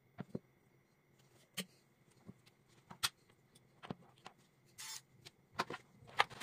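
Light handling noises: scattered clicks and knocks as a DC charging plug is pulled from a homemade PVC-pipe coffee mixer and the cable is laid on a cutting mat, with a short rustle just before five seconds in.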